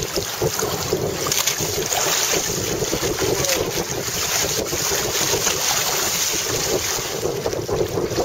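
Hobie Tandem Island sailing trimaran moving fast under sail: water rushing and splashing steadily along the hull and outrigger, with heavy wind noise on the microphone.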